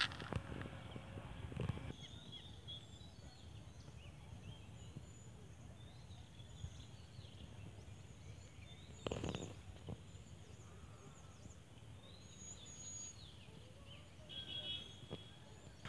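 Scattered small birds chirping and calling faintly over a steady low rumble, with a brief muffled bump about nine seconds in.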